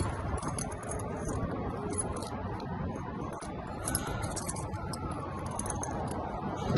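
Metal keys jangling and clinking as they are handled, a scatter of small sharp clinks over a steady low rumble.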